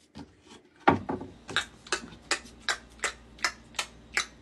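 Finger snaps keeping a steady beat of about three a second, starting about a second in.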